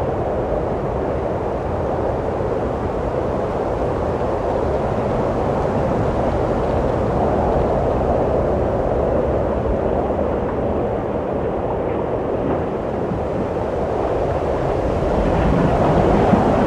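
Steady rushing wind that swells slightly in the middle and again near the end.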